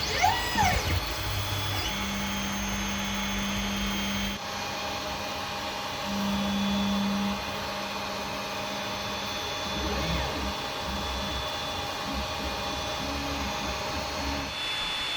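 Creality Ender 5 3D printer running: its stepper motors drive the axes with faint pitched whines that change pitch and switch on and off every second or two as moves start and stop, over a steady fan hum.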